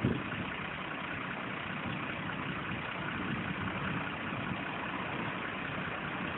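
Tow truck's engine running steadily while its crane lifts a clamped car off the road, with a brief knock at the very start.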